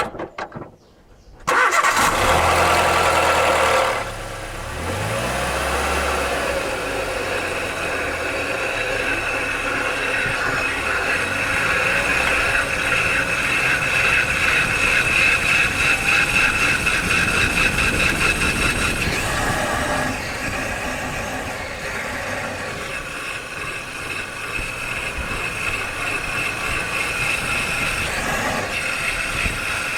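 A car's engine starts about a second and a half in, then the car drives with a steady high-pitched metallic noise from the wheel, the sign of brake pads worn down and the disc being eaten away.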